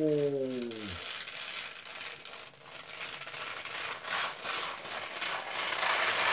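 Protective plastic film being peeled off the tempered-glass side panel of a be quiet! Pure Base 500DX PC case: a crackling, rustling peel that grows louder toward the end. In the first second a voice slides down in pitch and stops.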